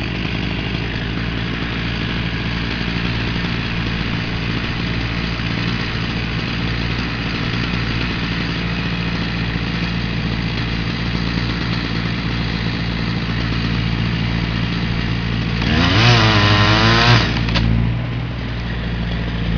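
Chainsaw idling steadily, revved up once briefly near the end.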